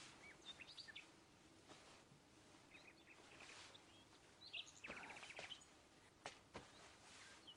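Quiet outdoor ambience with faint, scattered bird chirps, including a quick trill about five seconds in.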